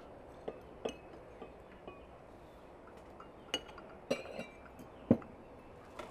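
Glass tea glasses and saucers clinking and knocking on a table as tea is served, a series of short clinks, some with a brief ringing. The loudest is a fuller knock about five seconds in, as of a glass set down.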